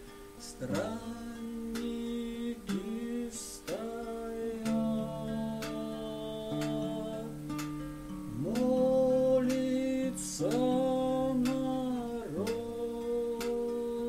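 A man singing a slow song to his own strummed classical guitar, sliding up into long held notes over the chords, louder in the second half.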